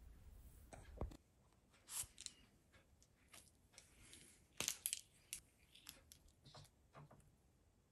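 Faint clicks and scratches of a paint marker being handled and drawn across a sticker on a wooden table, a few short sounds spread through, the loudest a quick cluster about halfway through.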